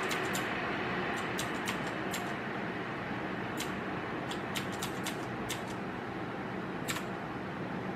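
Cooling fans of a Sapphire NITRO+ RX 470 graphics card in an open case, running with a steady whoosh that eases slightly as their speed is lowered from about 66% to 39% (roughly 2570 to 1760 RPM). Sharp clicks are scattered through it.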